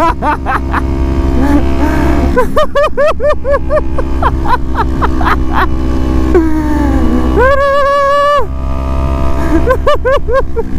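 Kawasaki Z250 motorcycle running steadily at road speed, heard from the rider's helmet microphone, under a man's loud wordless voice in quick repeated bursts, with one longer held cry near the end.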